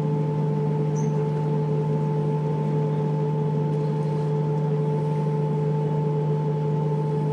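Canal tour boat's motor running with a steady, unchanging low hum.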